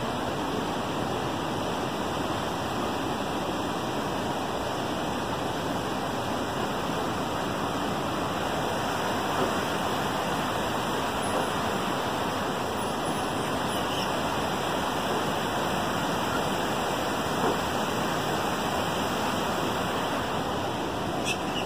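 Steady rushing of a fast-flowing mountain river tumbling over rocks, with a couple of faint clicks near the end.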